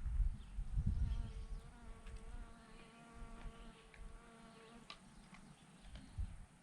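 A flying insect buzzing close by with a steady hum, starting about a second in and stopping after about four seconds. There are low thumps of wind or handling at the start.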